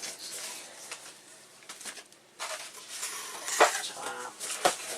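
Packaging rustling and a few sharp knocks and a short squeak as a boxed CRT monitor circuit board is handled and taken out of its packing, with the loudest knock a little past halfway.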